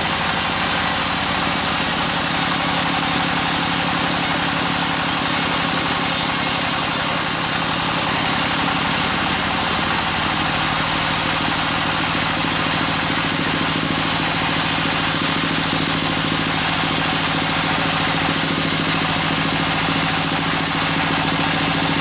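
A band sawmill running steadily as its blade cuts lengthwise through a large log, a continuous machine hum under an even high hiss.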